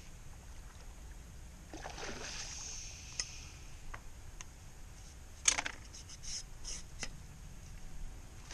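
A hooked rainbow trout splashing at the surface as it is played in on a fly rod. There is a short splash about two seconds in, a few small clicks, and one sharp, loudest splash about five and a half seconds in, with smaller ones after it.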